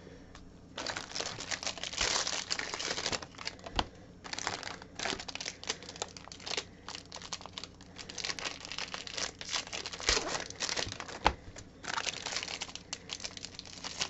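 Foil trading-card pack wrappers being torn open and crinkled by gloved hands: an irregular run of crinkling and tearing with short pauses, starting about a second in.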